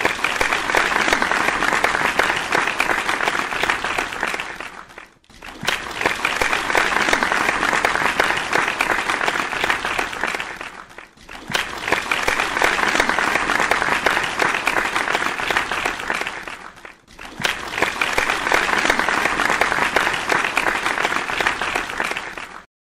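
Crowd applause, a steady clapping sound that fades out and back in three times, so it comes as four stretches of about five to six seconds each.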